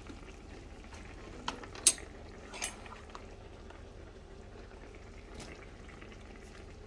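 Chicken pieces simmering in sauce in a pot, a steady bubbling sizzle as they cook down. A few sharp clicks of a utensil against the pot, the loudest about two seconds in.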